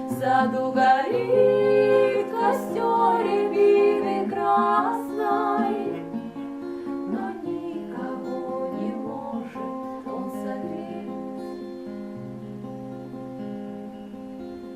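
Instrumental music without words: busier, louder playing for about the first six seconds, then softer held chords.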